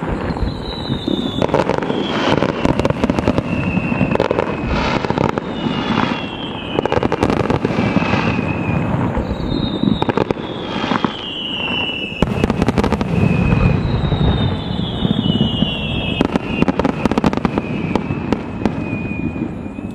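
Fireworks display: a rapid, continuous run of bangs and crackling from bursting shells and ground fountains, with several whistles that fall in pitch.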